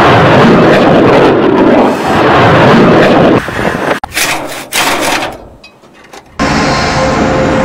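A missile's rocket motor roars at launch for about three and a half seconds. Then come a few sharp cracks, and near the end a steady loud mechanical noise.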